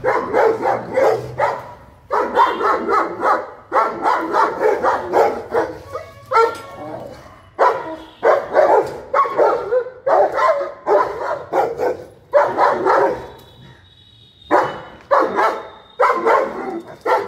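A German shepherd barking hard and fast, volley after volley with short breaks between, and a brief lull about three-quarters of the way through.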